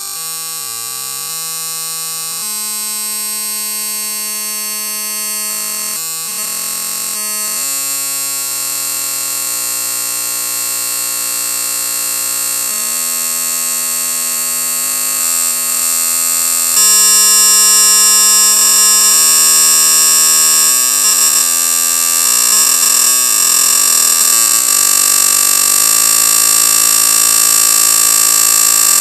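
An annoying ringing, whirring sound like marbles spinning around in a bowl. Several steady tones shift in pitch every second or two, and the sound gets louder and brighter about seventeen seconds in.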